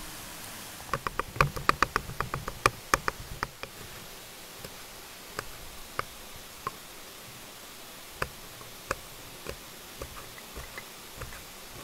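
Chef's knife knocking on a wooden cutting board. There is a fast run of chops about a second in, then single cuts every half second to a second as red chilies are sliced.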